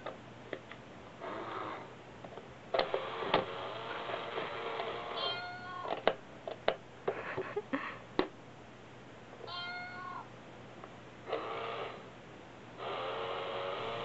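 A battery-powered toy cat coin bank set off again and again by a kitten pressing its lid: its mechanism runs in stretches of one to two seconds with a recorded meow, and sharp clicks and taps of paws on the cardboard box come in between.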